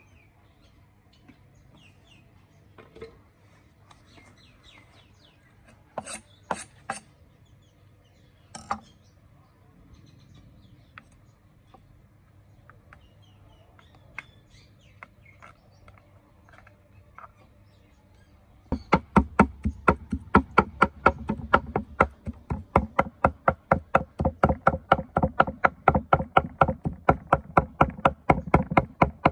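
Heavy cleaver chopping snail meat on a thick wooden log chopping block, in fast, even strokes about four or five a second, starting about two-thirds of the way in. Before that there are only a few light knocks.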